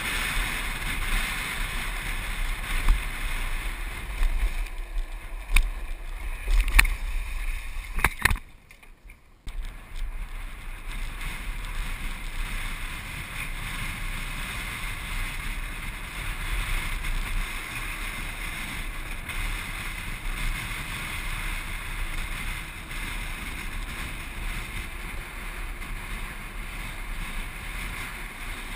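Steady wind rush and low rumble on the camera of a land yacht sailing across a dry lakebed. A few sharp knocks come between about five and eight seconds in, then the sound drops away suddenly for about a second before the steady rush returns.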